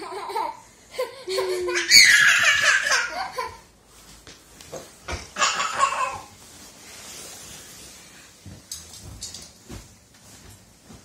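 Laughter in two loud bursts, one about two seconds in and another around six seconds, after a few short vocal sounds at the start.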